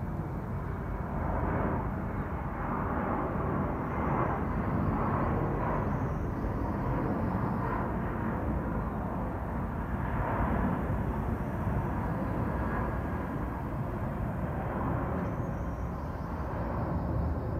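C-17 Globemaster's four turbofan engines heard from below as the transport flies low overhead: a steady, deep jet rumble that swells and eases slightly as it passes.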